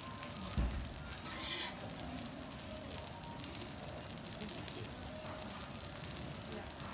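Beef fat sizzling on a hot teppanyaki steel griddle as it is pressed and rubbed across the plate with a spatula, a steady hiss with a louder burst of hissing about a second and a half in. A short low knock comes just before it.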